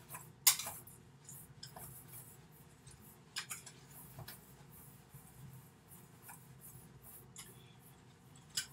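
Wire whisk stirring dry oat flour and rolled oats in a bowl: soft scratching with irregular light clinks of the whisk against the bowl, the sharpest about half a second in.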